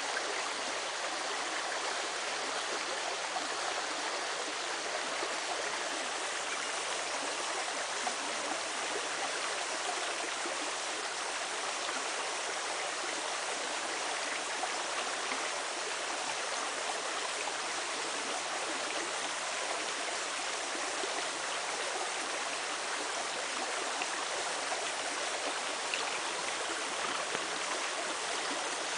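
A creek running: a steady, even rush of flowing water.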